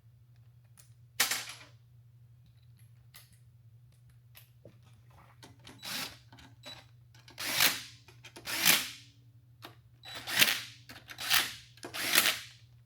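A power driver runs valve body bolts into an aluminum transmission case. It works in six short bursts of about half a second each, coming one after another from about six seconds in, with a few light clicks before them.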